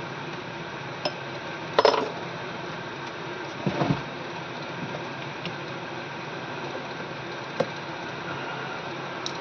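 A phone opening tool clicking and scraping against a Samsung Galaxy A03 Core's back cover as it is pried open: scattered sharp clicks, the loudest cluster about two seconds in and another near four seconds, over a steady background hum.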